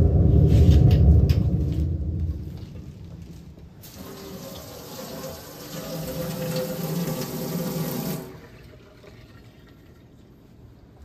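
A loud low rumble dies away over the first two seconds. Then a tap runs into a stainless-steel sink for about four seconds and is shut off suddenly.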